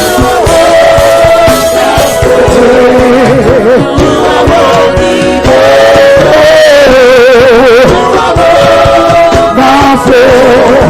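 Live worship music: a singer holds long notes with a wide vibrato over a band with a steady drum beat.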